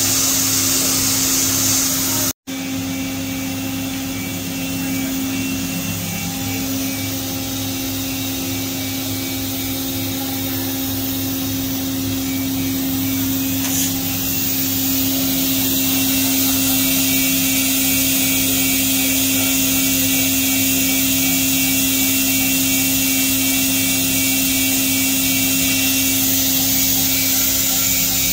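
Roku-Roku Sanyo HC-658 vertical machining center running: a steady machine hum and whine of several held tones under a high hiss. The sound cuts out for an instant about two seconds in.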